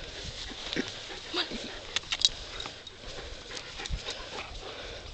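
A Siberian husky panting, with scattered sharp clicks and rustles, the sharpest a quick cluster about two seconds in.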